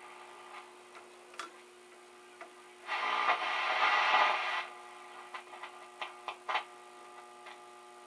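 DuMont RA-113 television's speaker giving a burst of static hiss for about a second and a half as its tuner is turned, over a low steady hum. Scattered light clicks follow.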